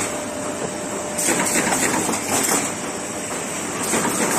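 Automatic corrugated partition assembling machine running: steady mechanical clatter and clicking under a thin high whine, growing louder in stretches every couple of seconds as it cycles.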